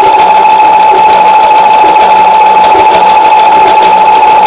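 Brother electric sewing machine running at a steady speed, sewing an overlock stitch along a fabric edge: a steady, high motor whine with fast, even needle ticking.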